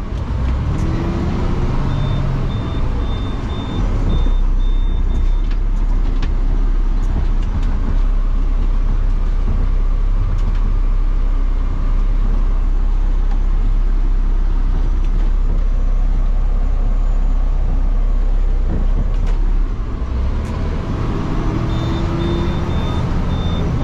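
Automated side-loader garbage truck running loud and steady, heard from inside its cab, with the engine revving up briefly just after the start and again near the end. An electronic beeper sounds in runs of short, evenly spaced beeps, about two a second, from about two seconds in and again near the end.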